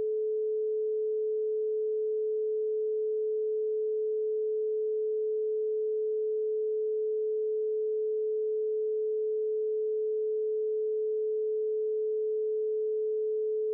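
Pure 432 Hz sine tone, held steady at one pitch and level with no overtones.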